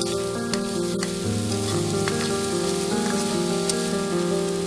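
Broccoli and carrot pieces sizzling in a hot wok as they are stir-fried, with a few light clicks as they are tossed. Background music with slow, sustained notes plays over it.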